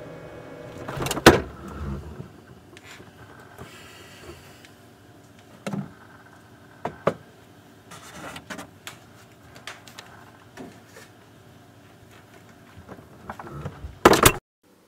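Refrigerator door pulled open with a loud thump about a second in, then scattered light knocks and clinks as jars and items on the shelves are handled, and the door shut with a loud thud near the end.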